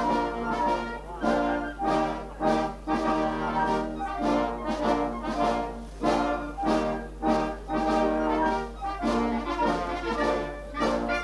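Wind band of brass and woodwinds playing a tune with a steady, regular beat, the brass to the fore.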